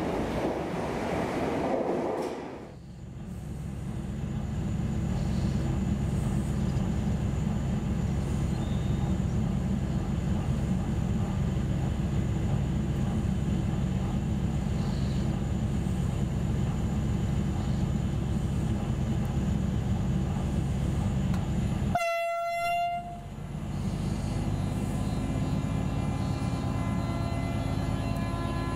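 Renfe diesel locomotive on a Talgo train with its engine running in a steady low drone, then one short horn blast about three quarters of the way through, after which the engine note rises slightly as it moves off. The first couple of seconds are the echoing hum of a large station hall.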